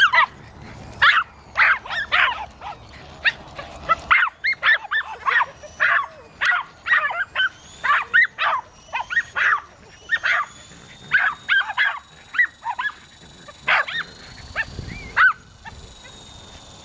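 Small dogs barking in rapid, high-pitched yaps, excited by a low-flying remote-control helicopter. A faint high whine from the helicopter's motor rises slowly behind the barks in the second half.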